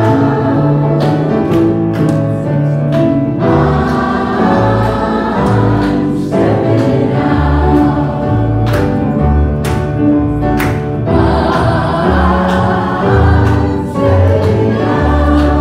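Congregation singing a song together with live instrumental accompaniment: a bass line under the voices and sharp percussive hits on the beat.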